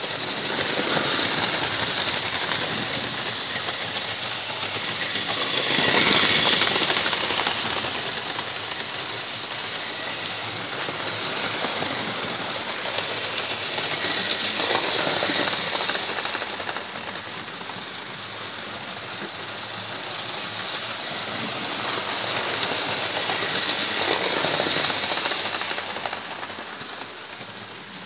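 Hornby OO-gauge Coronation Scot model trains running on the layout's track, their wheels and electric motors making a steady running noise. The noise swells three times, about every nine seconds, as a train comes close.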